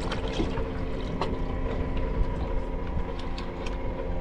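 A boat's engine idling with a steady hum, with light irregular ticking over it.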